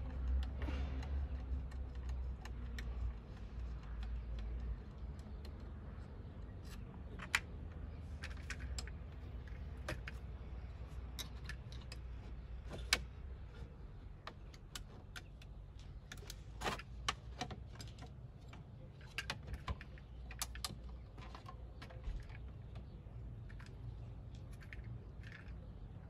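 Scattered small clicks and plastic rattles as a screwdriver and hands work the turn signal switch loose from a Mercedes-Benz W210 steering column, with a steady low rumble underneath.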